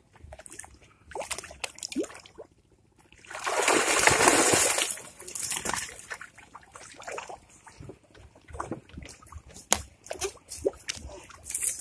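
Cast net hauled up out of river water: a loud rush of water pouring and splashing off the net about three to five seconds in, followed by dripping, small splashes and scattered light knocks.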